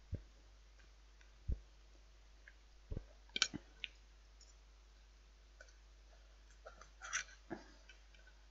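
Knife and fork clicking and scraping against a plate as a lamb chop is cut. The clicks come short and scattered, in a couple of quick clusters, with a few soft low thumps between them.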